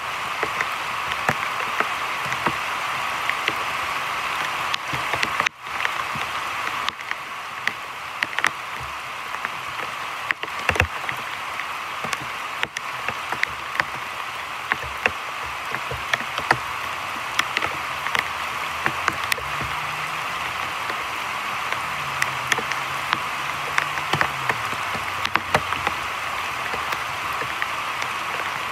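Heavy rain pouring onto the surface of a shallow creek: a steady hiss dotted with many sharp individual drop hits.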